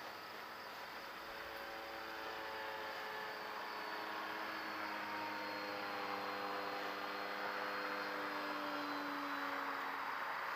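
Electric RC model RV-9 in flight: its electric motor and propeller give a whining hum of several tones over a hiss, slowly sliding down in pitch and growing louder as the plane comes closer.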